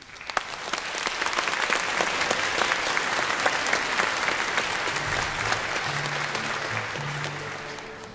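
Audience applauding in a large hall, dying away near the end. A few low held tones sound under the clapping in the second half.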